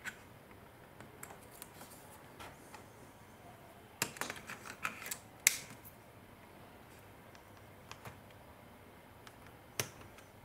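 Small plastic clicks and taps from handling the opened-up Canon PowerShot G12 compact camera: a single click at the start, a quick run of clicks and knocks about four to five and a half seconds in, and a few more isolated clicks near the end.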